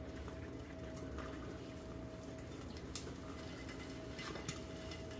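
Eggs frying in a hot, lidded pan, a faint steady sizzle under a thin constant hum, with a few soft clicks of a spoon scraping avocado from its skin and a knife set down.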